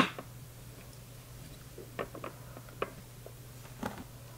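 A fountain pen set down on a hard tabletop with a sharp click at the start, then a few lighter clicks and taps as the pens are handled and arranged, over a steady low hum.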